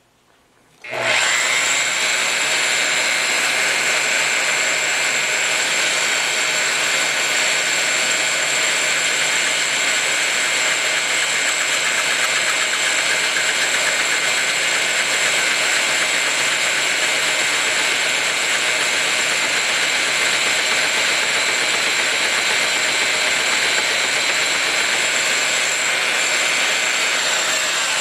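A power-driven machine spindle starts about a second in and runs steadily with a high whine, turning a carbide-insert valve seat cutter on a tapered pilot as it mills the valve seat pocket in a Willys F-head cast-iron engine block.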